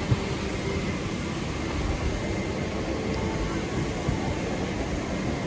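Steady low rumble of a Boeing 777-300ER's cabin after landing, with faint indistinct voices and a small knock right at the start.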